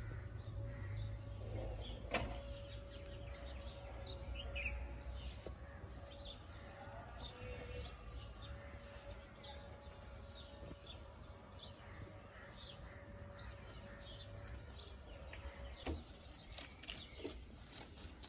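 Faint outdoor birdsong: short chirps repeated every second or so over a low background rumble and a faint steady hum. Near the end, a few sharp clicks and rustles from leaves being handled.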